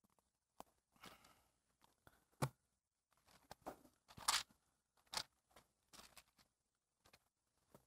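Faint, scattered rustles of Bible pages being turned and handled on a wooden lectern, with a soft knock about two and a half seconds in and the longest rustle just past four seconds.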